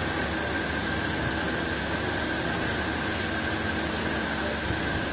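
Steady hum and hiss with a few faint constant whining tones, like the running noise of fans or a sound system; no distinct events.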